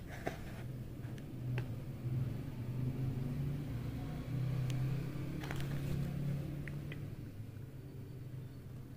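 A low, steady hum, like a motor running, that swells a few seconds in and eases off near the end. A few faint clicks and rustles of catalogue pages being handled sit on top of it.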